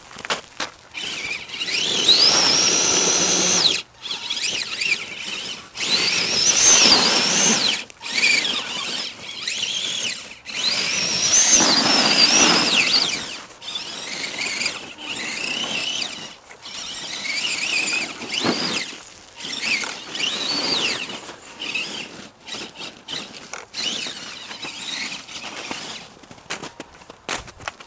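Radio-controlled monster truck's electric motor and gears whining in throttle bursts, the pitch rising as it speeds up and falling as it slows. Three long, loud full-throttle pulls of a second or two come in the first half, then many shorter blips as the tyres spin in the snow.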